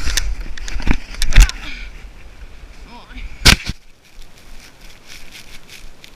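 Skier tumbling into deep snow, heard up close on a body-mounted camera: a low rumble and three sharp knocks about 1, 1.5 and 3.5 seconds in as body and gear hit the snow, with a brief voice among them. Then softer rustling of snow and clothing.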